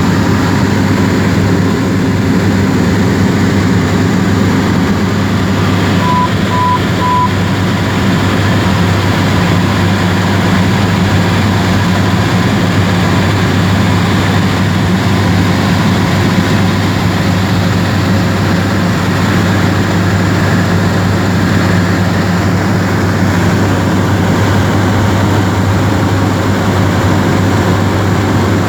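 Cessna 172R's four-cylinder Lycoming engine and propeller droning steadily, heard inside the cabin during the approach. Three short beeps sound about six seconds in.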